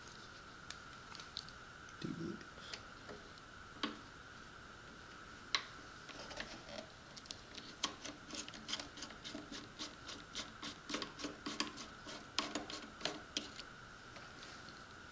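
Wera TX6 Torx micro screwdriver working the small screws of a plastic jet-boat thrust cone: scattered light clicks and ticks, coming in a quick run of about three or four a second from about seven seconds in, over a faint steady high-pitched hum.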